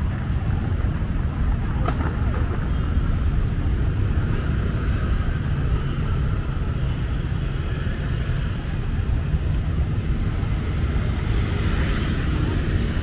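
City street ambience: a steady rumble of passing traffic.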